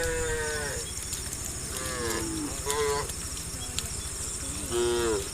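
Cows in a herd mooing, several calls one after another, each sliding down in pitch at its end.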